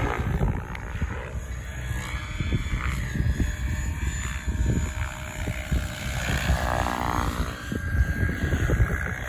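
Electric RC helicopter, a SAB Kraken 700 with a brushless motor, flying aerobatics: the spinning rotors whoosh and the motor whines, the pitch swinging up and down as it manoeuvres. Wind rumbles on the microphone throughout.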